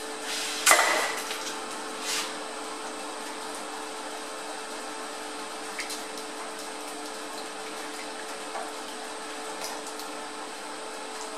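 Hot, freshly MIG-welded steel of a Zetor tractor gear selector plunged into water to cool it: a short loud hiss about a second in and a smaller one near two seconds, over a steady background hum.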